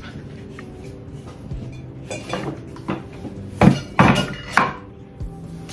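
Hard objects knocking and clattering as things are moved about and set down, with the loudest knocks bunched a little past the middle, over faint background music.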